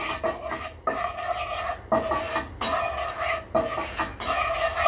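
A utensil scraping and stirring a thick masala of chilli, coriander and turmeric powder in a little oil in a pan, in repeated rasping strokes about once a second with a slight ring from the pan.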